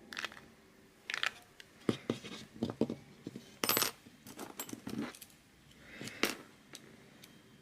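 Small metal hardware (screws and bolts) clinking and clattering irregularly as it is picked through and handled on a workbench.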